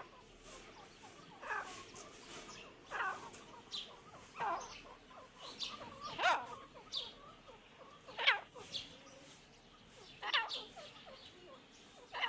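A pair of partridges ('Irani teetar') calling: short, sweeping calls repeated every second or two, some louder than others.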